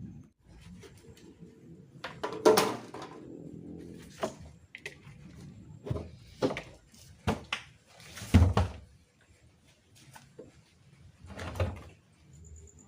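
Irregular knocks and clanks from a broken single-door refrigerator being taken apart for scrap, about eight sharp hits with the loudest about eight seconds in. One early hit rings briefly with a pitched note.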